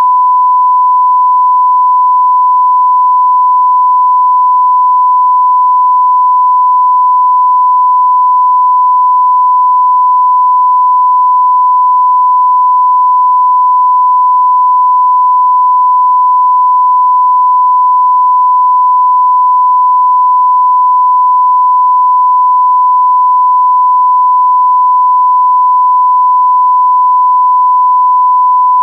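Electronic sine-wave test tone at about 1 kHz, one pure pitch held steady and unbroken.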